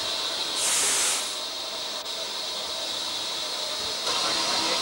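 Steam hissing from C38-class steam locomotive 3801 standing in steam: a steady hiss, with a louder blast of steam about half a second in and another near the end.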